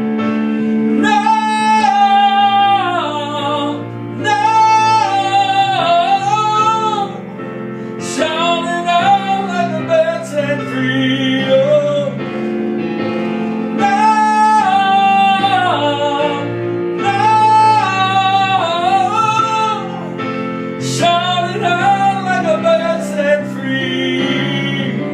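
Female voice singing six long wordless phrases that glide up and down over sustained piano chords.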